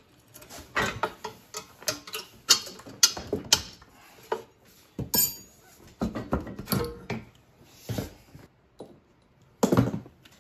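Exhaust springs being unhooked with a spring-puller tool and the exhaust pipe worked off a two-stroke triple snowmobile engine: a string of irregular metal clicks, clanks and rattles.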